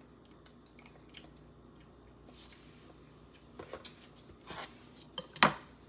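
Mostly quiet kitchen with a few small clicks and smacks in the second half, and one sharp click near the end.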